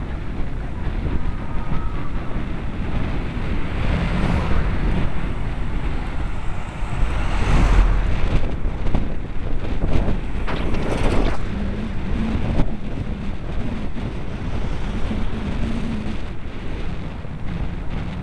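Wind buffeting the microphone of a helmet-mounted camera on a moving road bike, a steady loud rumble. Passing motor traffic swells over it now and then, one vehicle going by about ten seconds in.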